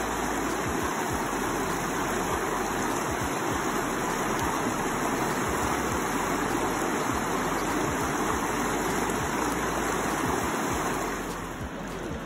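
Shallow brook water rushing steadily over rocks, a constant splashing rush that gets a little quieter near the end.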